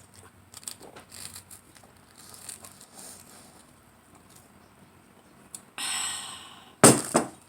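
Close-miked eating sounds from a spaghetti mukbang: soft chewing and lip smacks, a longer slurp about six seconds in, then a few sharp knocks just before the end.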